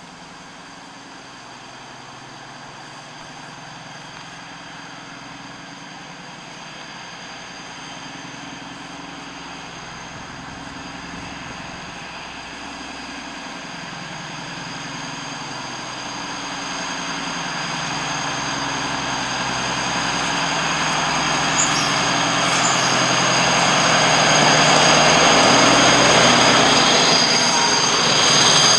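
Multiple-headed DB Class 218 diesel-hydraulic locomotives working under power as they approach and pass. The sound grows steadily louder throughout, a high steady whine over the engine drone, with rolling wheel noise swelling near the end as the locomotives go by.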